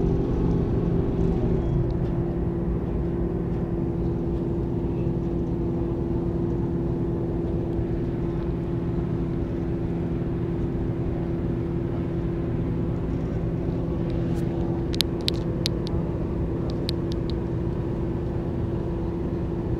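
Ferry's engine droning steadily with a constant deep hum. A few sharp clicks come in a cluster about fifteen seconds in.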